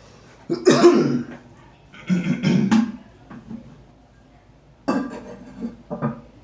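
A person coughing and clearing their throat in four short bouts, the first two the loudest.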